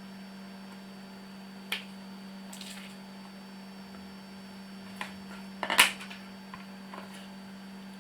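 A steady low hum with a few sharp clicks and light knocks; the loudest is a quick cluster of clicks about six seconds in.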